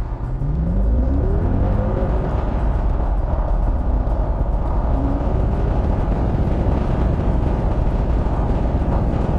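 Cabin sound of a 2004 Mercedes S55 AMG's supercharged V8 accelerating, its note rising over the first two seconds, then steady engine and road noise at highway speed, with a shorter rise about five seconds in.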